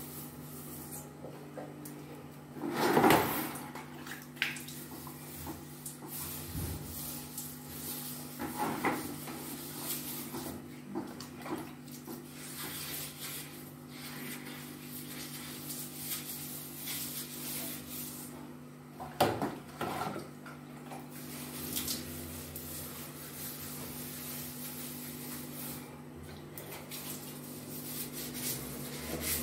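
Plastic scoop and bucket clattering and knocking, with water splashing, as a toilet is scrubbed and rinsed by hand. The loudest clatter comes about three seconds in and another a little past halfway, over a steady low hum.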